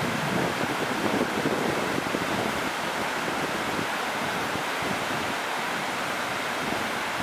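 Whitewater river rapids rushing steadily, with some wind buffeting the microphone in the first couple of seconds.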